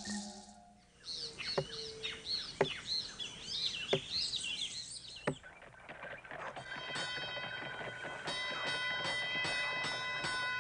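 A chorus of birds calling with quick high whistled chirps, with a few sharp clicks among them. About six and a half seconds in, music with repeated struck notes takes over.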